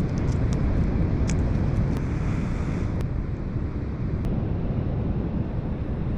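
Wind buffeting the microphone over the steady wash of sea surf, with a scatter of sharp little clicks, most in the first two seconds and a few more around three and four seconds in.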